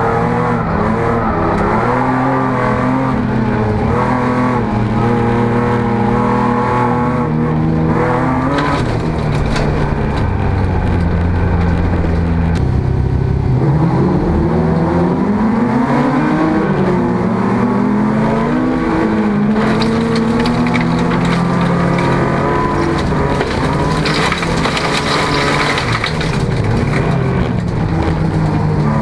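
Jokkis (folkrace) car heard from inside the cabin, its engine driven hard with revs climbing and dropping at each gear change. About ten seconds in it settles to a low drone for a few seconds, then revs up again through the gears. Tyre and gravel noise runs underneath.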